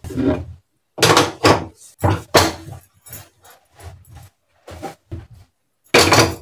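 Metal clatter and knocks from a two-burner gas stove's pan-support grates being lifted, wiped with a cloth and set back down, a few knocks a second apart. Near the end an aluminium cooking pot is set down on the burner with a louder clank.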